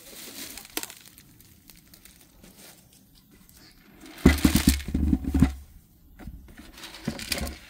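Dry leaves and twigs crackling and rustling underfoot. A loud burst of crackles with a low rumble comes about four seconds in, and a shorter one near the end.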